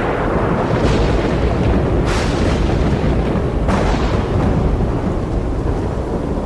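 Thunderstorm thunder: a continuous deep rumble with sharper cracks breaking in about one, two and three and a half seconds in.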